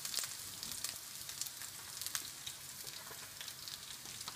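Whole soles frying in butter and olive oil in a pan: a steady sizzle with frequent sharp crackles of spitting fat.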